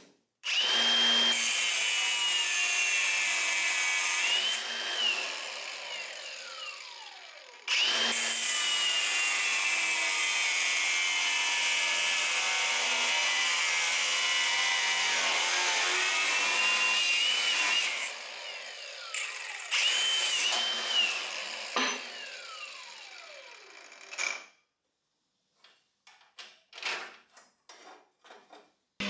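Electric power tool with a high motor whine and a harsh hiss, run three times. Its pitch dips and recovers while it runs, and it winds down with a falling whine after each run. A few light clicks and knocks follow near the end.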